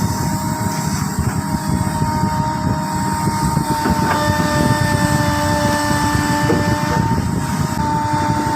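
Excavator's diesel engine running steadily with a dense low rumble and steady whining tones over it; a higher whine joins about four seconds in.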